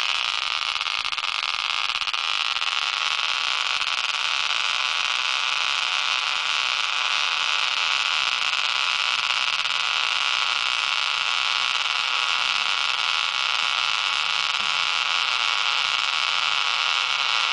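Neodymium magnet ball spinning in its dish on a pulse-motor coil, a steady whirring hiss as it coasts with the drive power switched off.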